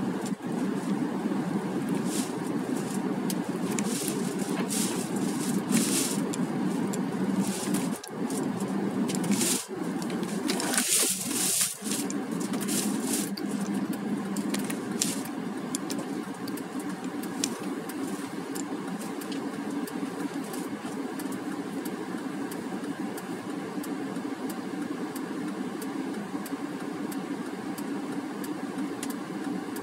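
Car engine and road noise heard inside the cabin, with scattered clicks and rattles and a loud hiss about ten seconds in. From about halfway through the sound is quieter and steadier as the car stands stopped at a red light with its engine idling.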